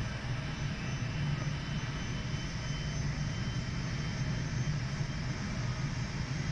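Aircraft engines running steadily: a low drone with a faint high whine above it.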